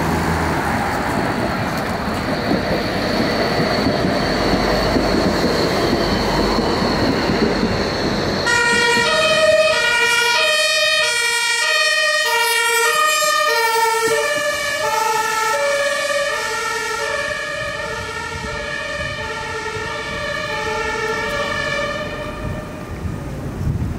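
Two-tone emergency vehicle siren of the German Martinshorn type, alternating steadily between a lower and a higher tone, each held for under a second. It starts about eight seconds in over street traffic noise and stops near the end.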